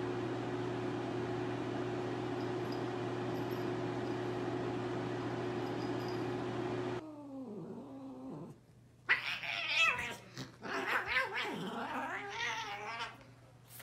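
A steady hum at first, then cats yowling and caterwauling as they fight, with drawn-out falling cries and then loud wavering yowls in the last few seconds.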